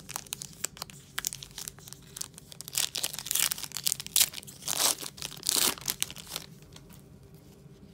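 Foil trading-card pack being crinkled and torn open by hand: a crackling rustle with louder tearing bursts in the middle, dying away about six and a half seconds in.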